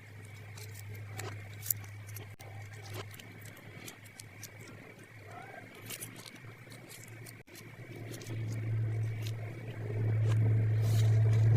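Small plastic toy pieces and packaging being handled, giving light, scattered clicks and taps. Under them runs a steady low hum that gets louder over the last few seconds.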